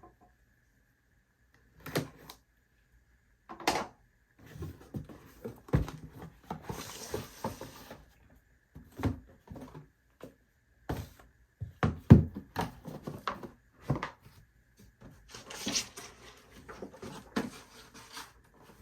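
Packaging being handled: cardboard boxes and paper inserts set down and shuffled, with scattered knocks and taps and two stretches of rustling.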